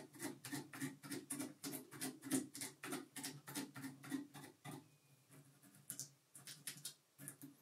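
A dubbing brush stroked quickly and repeatedly across the dubbed body of a tube fly to brush the fibres out, about five short strokes a second. The strokes thin out to a few scattered ones after about five seconds.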